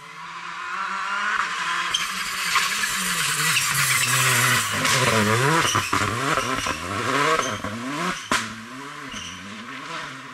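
Rally car engine driven hard on a stage, the revs rising and dropping again and again as it shifts and lifts for the bends, with one sharp crack about eight seconds in.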